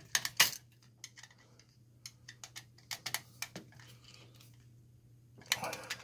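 Screwdriver tightening a terminal screw on a GFCI receptacle: sharp metal clicks and scrapes just after the start, scattered small ticks, and another short run of scraping near the end.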